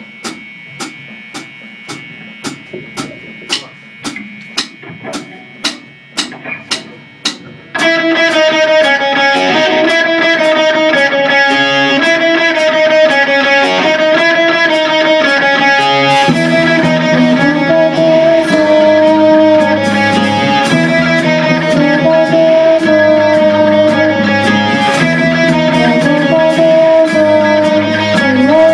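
Rock band rehearsing a pop-punk song: a steady run of sharp taps, getting louder, over a faint amplifier hum, then about eight seconds in the distorted electric guitar and full drum kit come in loud together. Around halfway the sound fills out lower as the bass guitar comes in with the band.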